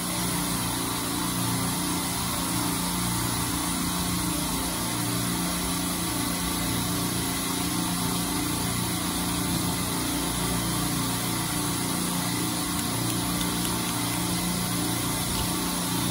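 Steady drone of running machinery, a low hum with a whirring noise over it that holds unchanged throughout.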